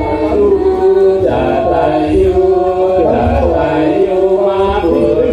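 Chant-like Javanese singing over gamelan accompaniment for a wayang orang dance, with low drum beats about every second.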